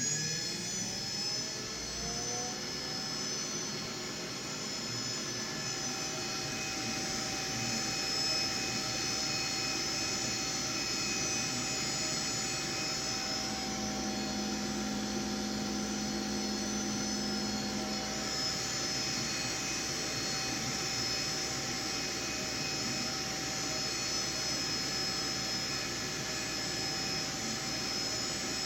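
Creality K1 Max 3D printer's cooling fans running at full speed during its self-test, a steady high-pitched whir. A low hum joins in for about five seconds midway.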